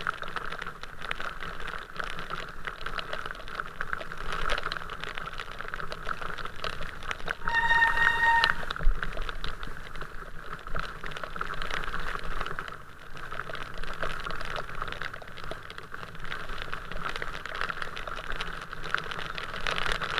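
Rain drops hitting close to the microphone, a steady dense crackle of small ticks over the hiss of wet traffic. A car horn honks once, about a second long, roughly eight seconds in.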